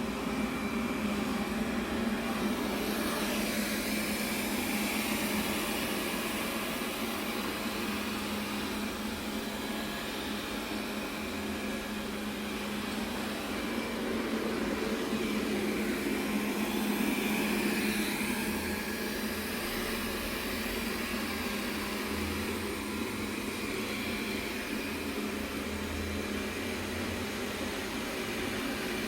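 Robot vacuum cleaner running: a steady motor hum under an even whirr, growing a little louder past the middle.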